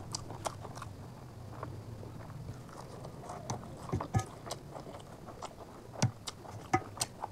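Close-miked eating sounds: wet chewing and lip smacks, with the squish of fingers mixing rice and chicken curry on a steel plate, as scattered short clicks, a few louder ones about four and six seconds in.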